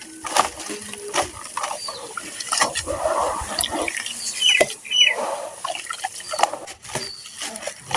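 Gritty, water-soaked sand-cement and charcoal chunks crumbling and crunching under the fingers in a series of irregular sharp crackles with softer wet squelching between them.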